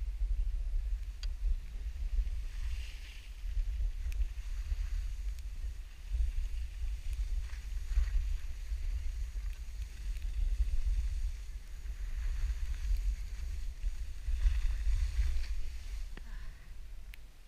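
Wind buffeting the microphone: a gusty low rumble throughout, with a few swells of hiss.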